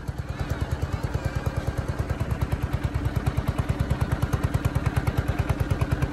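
Engine of a wooden river boat running steadily: an even, fast low pulse of about ten beats a second.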